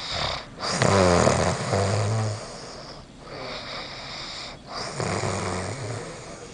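A sleeping person snoring loudly: a long, low snore starting about half a second in, then a breath, and a second, softer snore near the end.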